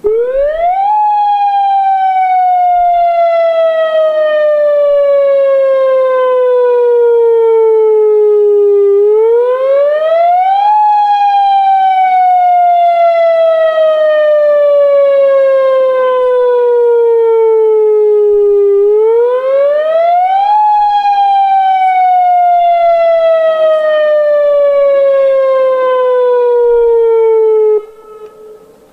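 Newly installed dam warning siren, sounded from loudspeakers in a test. Its very loud wail rises quickly and then sinks slowly over about eight seconds, three times over, and cuts off suddenly near the end.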